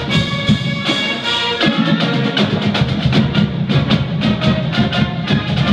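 School band playing: held notes over a steady beat of sharp drum hits.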